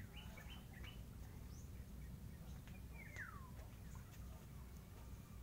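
Faint bird chirps: a few short high calls near the start, then one clear call falling in pitch about three seconds in, over a low steady rumble.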